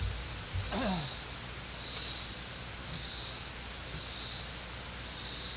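Insects calling in the trees: a high buzzing that swells and fades in a steady rhythm about once a second. A brief falling sound comes about a second in.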